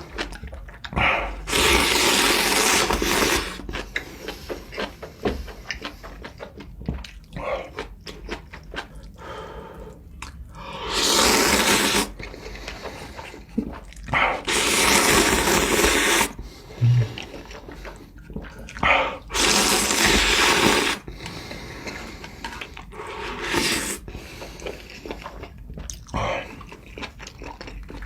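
A person eating spicy seafood ramen: about five long, wet slurps of noodles and broth, with close-up chewing and small mouth clicks between them.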